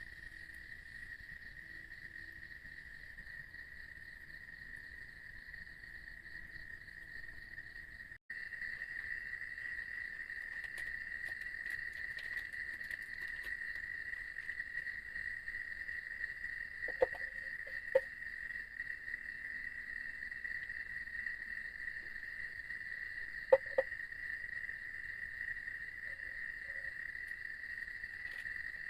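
Night insects, such as crickets, trilling in one steady, unbroken high-pitched drone that gets louder about eight seconds in. A few short sharp knocks come in pairs a little past halfway and again later.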